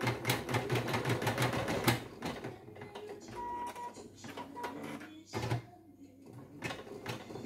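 Singer Quantum Stylist EM200 embroidery machine stitching rapidly, about seven stitches a second, then stopping about two seconds in. Two short beeps follow, and a brief noise comes a little past five seconds.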